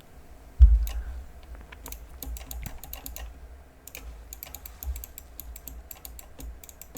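Typing on a computer keyboard: quick, irregular key clicks in two runs, after a low bump about half a second in.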